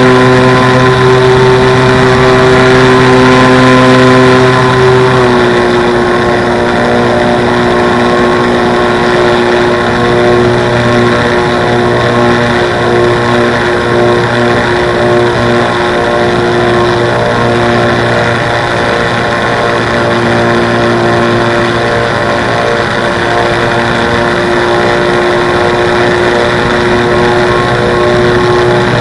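Motor and propeller of a radio-controlled model airplane, heard close up from a camera in its nose: a loud, steady drone of constant pitch. About five seconds in, the pitch drops slightly and the sound gets a little quieter, then holds steady with a slight waver.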